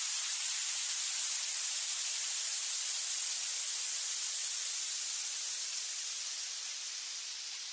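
White-noise hiss used as a production effect in a dance-track outro, thin and bright, slowly fading out.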